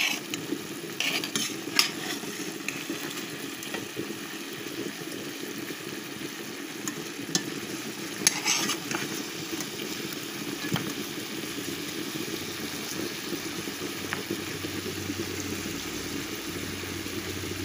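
Meat sizzling steadily in a caldero, with a few short scrapes of a spoon stirring it near the start and again about eight seconds in.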